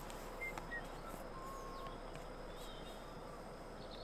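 Quiet outdoor ambience, a steady soft hiss, with a few short, faint bird chirps and warbles scattered through it.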